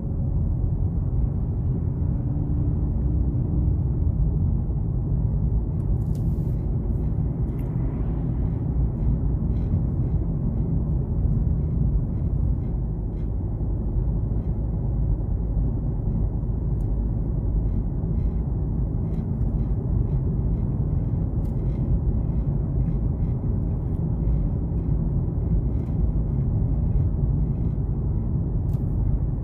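Steady low road rumble inside a moving car's cabin: tyre and engine noise at cruising speed, with a few faint clicks from about six seconds in.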